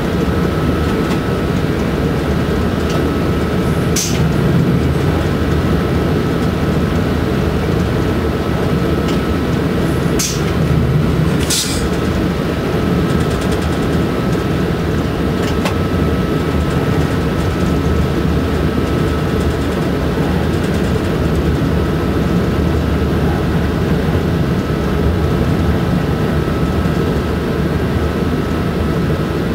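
Running noise of an SNCF BB 27300 electric locomotive at speed, heard inside its cab: a steady rumble from wheels and running gear with a faint, steady high whine. There are a few short sharp clicks, the strongest about twelve seconds in.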